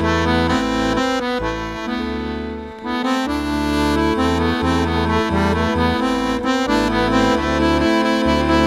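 Accordion playing an instrumental folk tune, with chords and low bass notes changing in a steady rhythm underneath the melody. The music drops in level briefly about three seconds in.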